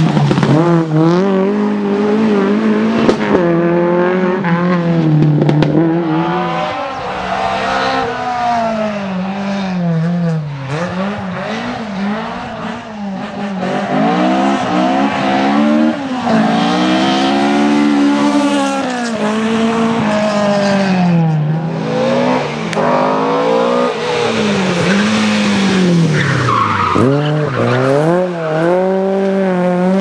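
Opel rally cars driving hard past the roadside, one after another. Their engines rev up through each gear, drop sharply at each shift, and fade and return as each car passes.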